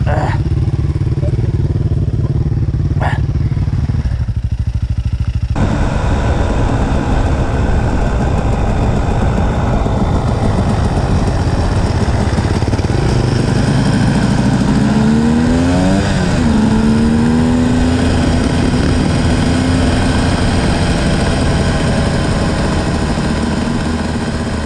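KTM EXC 250 enduro motorcycle engine running while being ridden. The sound changes abruptly about five seconds in. Around the middle the engine's pitch climbs and drops, then holds a steady note.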